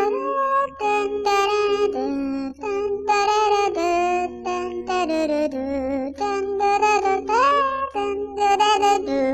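A high voice singing a tune, no words picked out, with a rising slide between notes about seven seconds in.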